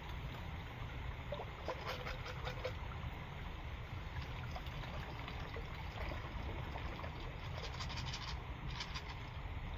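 Water trickling and splashing as it is scooped from a shallow stream with a small cup and poured out, in short runs over a steady background hiss.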